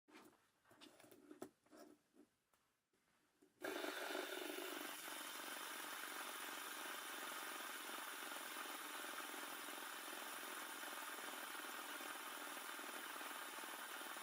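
A few light plastic clicks and knocks of handling. Then, a little under four seconds in, the Transformers Bumblebee fidget spinner starts up suddenly into a steady whirr that holds even.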